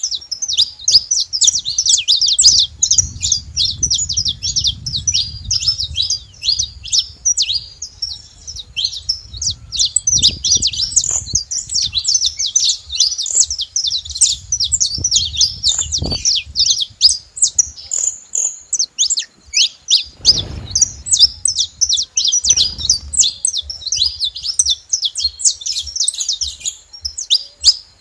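Several saffron finches singing together: a dense, unbroken stream of rapid high chirps and trills.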